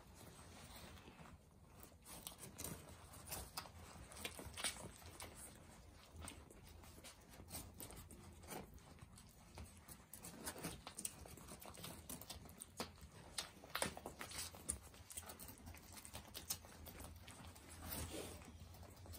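Young puppies suckling at their mother: faint, irregular wet smacks and clicks, over a low steady hum.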